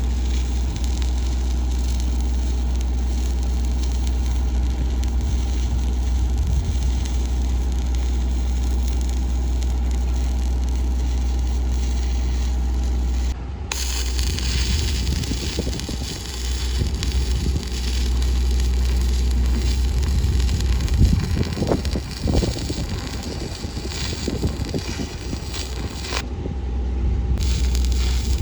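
Arc welding threadlets onto a steel pump pipe: crackling and hissing from the arc over a steady low drone from the running machine. The sound changes abruptly about halfway, and the crackle grows busier after that.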